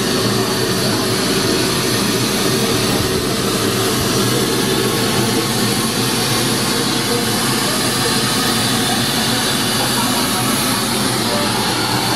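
A steady, loud rushing noise that does not change, with a few faint steady tones in it.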